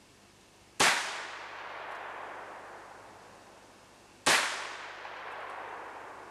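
Two gunshots about three and a half seconds apart, each followed by a long echo rolling away through the forest.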